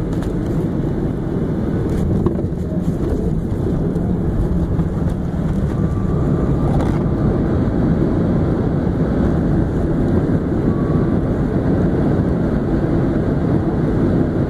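Boeing 737 jet airliner heard from inside the cabin during its landing rollout: a loud, steady roar of engines and runway rumble with the ground spoilers raised. It grows a little louder about six seconds in.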